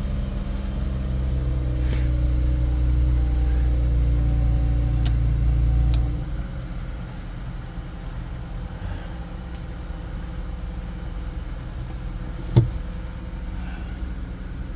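Infiniti Q50 Red Sport 400's 3.0-litre twin-turbo V6 running, heard in the car, at a raised, slightly rising idle for about six seconds before dropping suddenly to a quieter idle. A single sharp click comes near the end.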